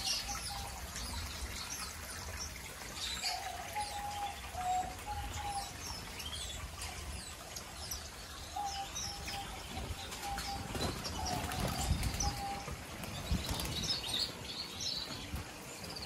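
A flock of small aviary finches and canaries chirping and twittering, many short high calls overlapping throughout, with runs of a steadier, lower whistled tone coming and going. A low rumble swells up a little past the middle.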